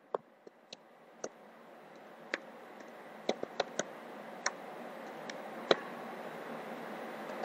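Computer keyboard typing: about a dozen light, irregularly spaced key clicks, over a faint hiss that slowly grows louder.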